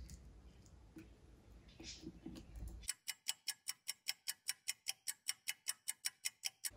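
Faint handling noise, then, from about three seconds in, a steady run of sharp ticks, close to six a second, that stops just before the end.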